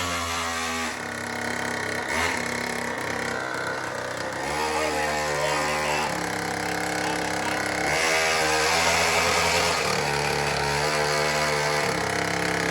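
Pocket bike's small engine running and being blipped: the revs drop at the start, then rise and fall again about four and eight seconds in.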